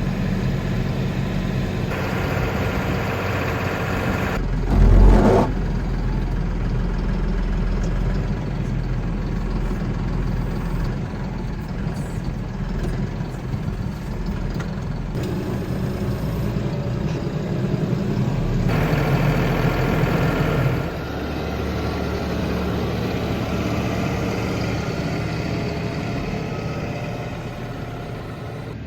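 A vehicle engine running steadily, with a brief louder burst about five seconds in.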